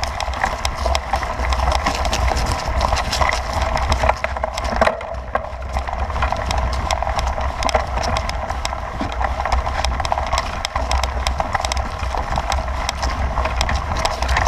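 Bicycle rolling over bumpy grass and dirt trail: constant rattling clatter of the bike over the rough ground, with a low rumble underneath.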